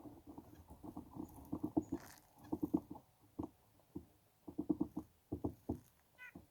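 Rapid, soft tapping and rustling close to the microphone, coming in irregular bursts, with a short high bird call near the end.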